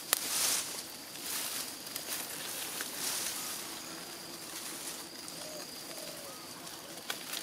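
A dove cooing faintly a few times over outdoor background, with brief rustling noises in the first half.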